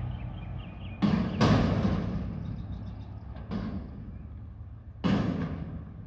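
Mack McNeilus front-loader garbage truck emptying a dumpster over its cab: loud metal bangs about one second, one and a half seconds, three and a half seconds and five seconds in as the upturned container is jolted on the lifting arms, over the truck's engine running.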